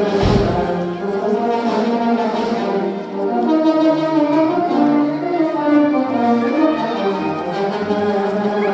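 Music led by brass instruments, with held, changing notes.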